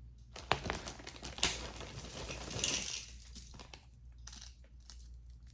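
Jewelry being handled: a quick run of small clicks and clinks through the first three seconds, a brief rustle near three seconds, then scattered lighter clicks.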